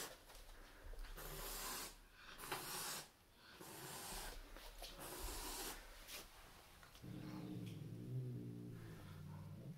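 Turkish Van cat hissing, several forceful hisses in a row, then a low, steady growl held for the last three seconds or so.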